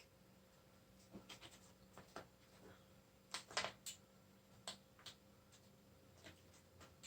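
Faint, scattered light clicks and small taps from handling small metal picture-hanging hardware (D-rings and screws) against a wooden stretcher frame, in a quiet room.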